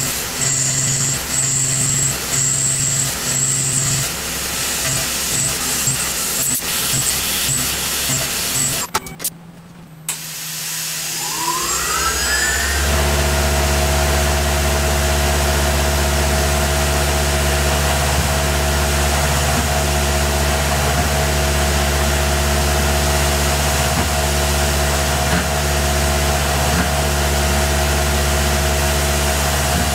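Tormach PCNC 1100 CNC mill: an uneven, pulsing machining sound for the first several seconds, then a break of about a second. Then the spindle spins up with a rising whine and runs steadily at constant speed with a new cutter in.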